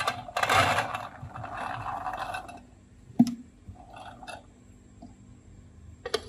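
Lotus seeds pouring and rattling into a stainless-steel steamer basket, then one sharp knock about three seconds in. A couple of quick clinks come near the end as a glass lid is set on the pot.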